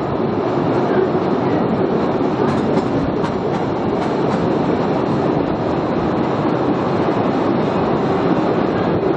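Postojna Cave tourist train running along its narrow-gauge track, heard from on board: a steady, even noise of wheels on rails and rattling carriages.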